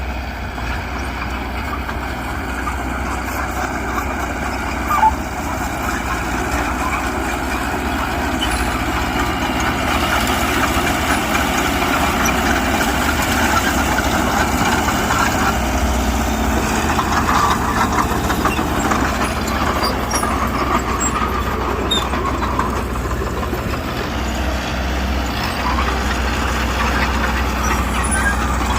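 Diesel engine of earthmoving machinery running steadily, getting louder from about ten seconds in. There is one sharp knock about five seconds in.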